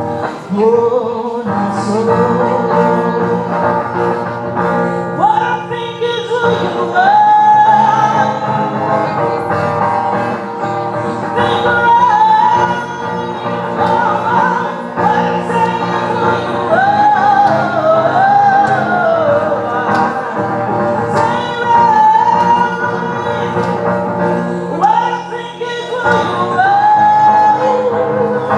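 A singer performing a slow song over guitar accompaniment.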